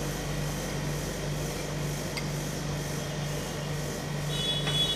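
Steady low hum pulsing about twice a second, from the rolled-ice-cream cold plate's refrigeration unit, with a faint tap about two seconds in and a brief ringing clink of metal tongs near the end.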